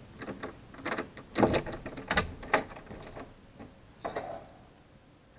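Key going into the lock of a round metal doorknob and turning: a run of metallic clicks and rattles, loudest in the middle. A softer scrape follows about four seconds in, as the knob is turned to open the door.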